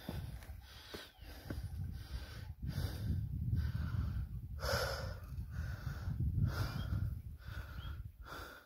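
A person's heavy, quick breathing close to the phone microphone, out of breath after a steep climb, with a louder breath about five seconds in.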